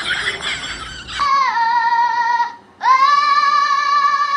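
A high voice holds two long, steady sung notes: the first starts about a second in and dips slightly before levelling off, and after a short break the second rises into a note held to the end. It sounds synthetic. Mixed chatter comes just before it.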